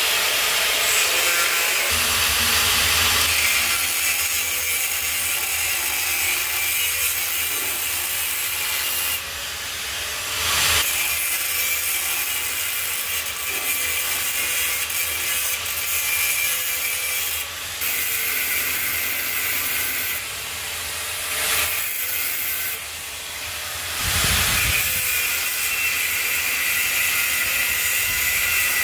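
Angle grinder with no safety guard grinding V-grooves into cracks in a wood stove's metal body, to prepare them for welding. A steady, loud, high grinding that changes briefly a few times.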